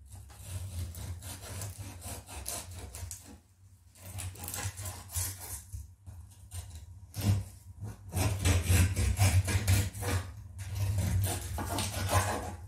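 Crusty loaf of bread being sliced with a knife: back-and-forth sawing strokes in about four bouts with short pauses between them, easily taken for sawing wood.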